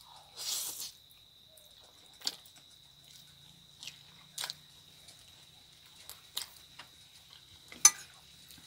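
Someone eating spaghetti close to the microphone: a short slurp near the start, then scattered sharp clicks while chewing, the loudest near the end. A faint steady high tone runs underneath.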